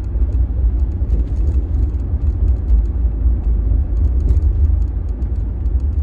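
Road noise inside the cab of a 2019 Ram 1500 on rough pavement: a steady low rumble with scattered light ticks and knocks, one a little stronger about four seconds in. These are the little thud-clunk and rattle from the front suspension that the owner puts down to worn sway bar bushings.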